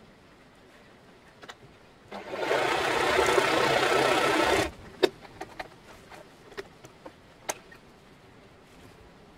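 Janome sewing machine running for about two and a half seconds as it sews a zigzag stitch, starting about two seconds in and stopping abruptly. It is followed by several light clicks of handling.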